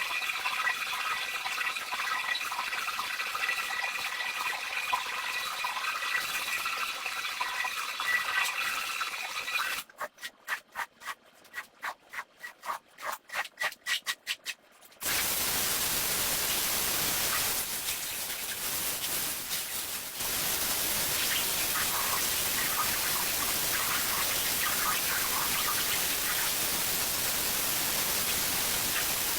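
Rug-cleaning sounds. First a wet hiss with a faint steady whine; then a run of scrubbing strokes, about three a second; then, after a sudden change, a loud, even hiss of spraying water.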